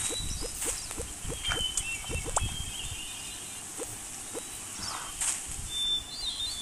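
Outdoor nature ambience of animal sound effects: a quick series of short rising chirps from an animal, with faint birdsong above it and a few soft knocks.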